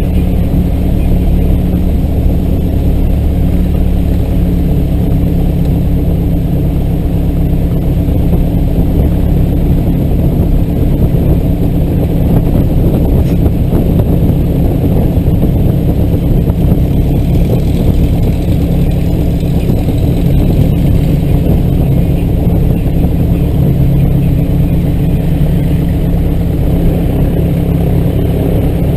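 Scottish Aviation Bulldog's four-cylinder Lycoming engine and propeller running steadily at low taxi power, heard from inside the cockpit.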